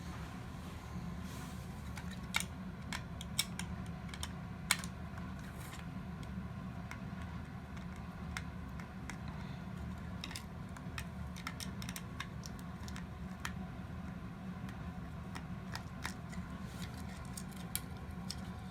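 Scattered small clicks and taps of hard plastic toy-robot parts being handled and pried during disassembly, a few sharper clicks about two to five seconds in, over a steady low hum.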